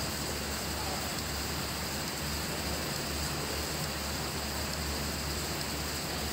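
Steady background noise with a low hum, no distinct events.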